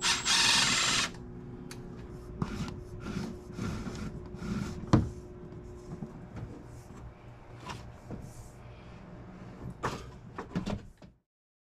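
A power drill runs in one short burst of about a second, followed by scattered knocks, clicks and clatter of hand work on tools and fittings over a low steady hum. The sound cuts off suddenly near the end.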